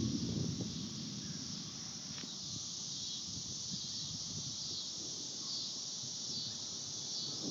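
Steady high-pitched drone of summer insects with faint chirps, and a low rumble dying away in the first second.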